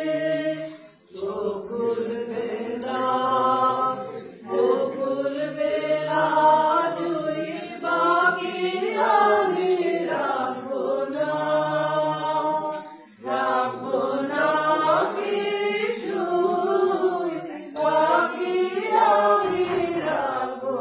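A group of voices singing a song together, in long phrases with brief breaks between them.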